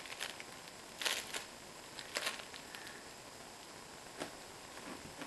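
Crinkling and rustling of a fabric crinkle toy as a puppy chews and paws it, in a few short bursts about a second apart.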